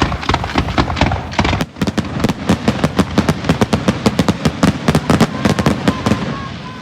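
Fireworks going off in a rapid barrage of sharp bangs and crackles, many a second, that dies away near the end.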